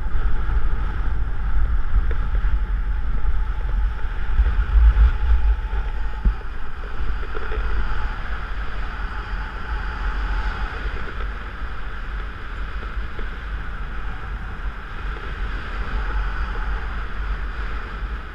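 Wind rushing over the camera's microphone in flight under a paraglider: a deep buffeting rumble with a hiss above it, easing a little about halfway through.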